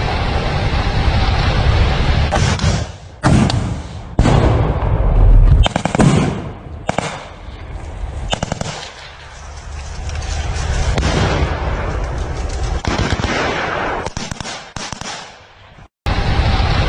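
Combat ambush: after a steady rush of noise, loud rocket-propelled grenade blasts go off about three and four seconds in, the heaviest around five seconds in. Bursts of automatic small-arms fire follow, with scattered shots afterward, and the sound cuts off suddenly near the end.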